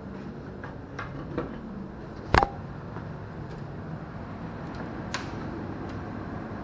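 Closet door being opened by hand: a few light clicks and taps, and one loud sharp knock a little over two seconds in.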